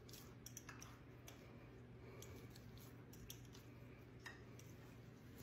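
Near silence over a low steady hum, with faint, scattered wet clicks and squelches from hands kneading and pressing a lump of homemade butter in a ceramic bowl to work the water out.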